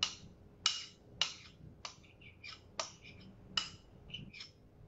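A spoon tapping and scraping against a small glass cup as mashed banana is knocked out into a mixing bowl: about eight sharp clinks at uneven intervals of roughly half a second.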